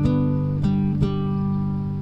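Music of strummed acoustic guitar chords, with a new strum about half a second in and another at one second.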